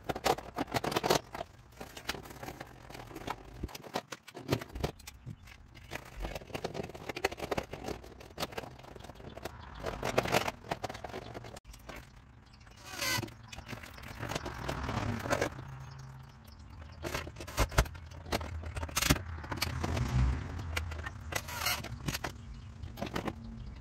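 Irregular scraping, clicking and rattling as vinyl siding is flexed apart and a plastic recessed outlet box is worked into the wall opening, with a cordless drill driving the box's mounting screws near the end.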